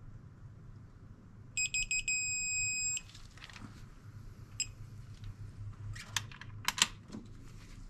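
Craftsman digital torque-angle wrench beeping as a cylinder-head bolt is turned to angle. A few quick high beeps run into a steady beep of about a second and a half, the wrench's signal that the set angle is reached. About a second and a half later comes one short beep, then a cluster of sharp metallic clicks as the wrench goes onto the next bolt.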